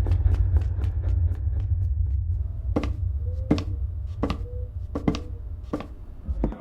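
Foley footsteps: single sharp steps at an even walking pace, about six of them in the second half, over a steady deep low rumble. Before them, a fast run of ticks fades out.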